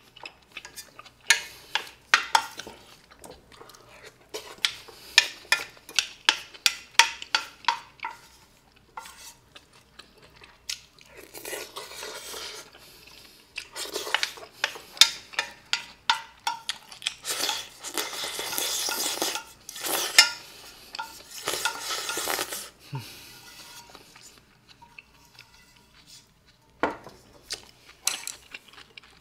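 Spoon clinking and scraping against a shallow stainless steel pan while scooping up sauce: a quick run of sharp clinks over the first several seconds, then longer scraping strokes, with only a few clinks near the end.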